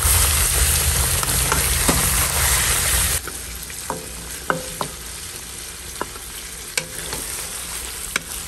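Lamb pieces in ginger-garlic paste frying in a nonstick pan while being stirred with a wooden spatula. The sizzle is steady and fairly loud at first, then drops suddenly to a softer sizzle about three seconds in. A few light knocks of the spatula against the pan follow.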